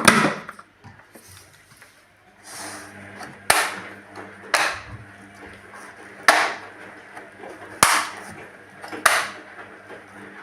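A run of six sharp knocks, each ringing out briefly, spaced one to two seconds apart, over a faint steady hum that starts about two seconds in.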